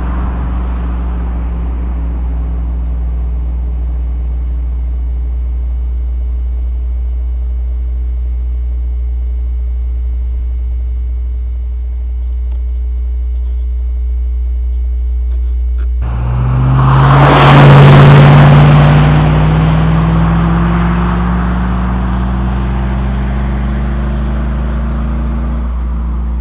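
Chevrolet 5.3L V8 exhaust through a Cherry Bomb muffler, heard inside the truck's cab with a constant deep drone. The engine runs steadily at light throttle, then about sixteen seconds in it accelerates with rising pitch, is loudest a couple of seconds later, and eases back off.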